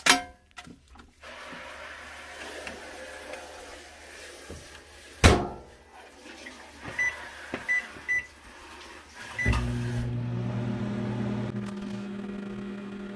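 A sharp clunk about five seconds in, then a few short keypad beeps, and near ten seconds a microwave oven starts up and runs with a steady low hum.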